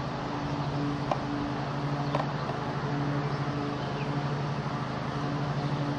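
A steady low hum, with a couple of faint knocks about one and two seconds in.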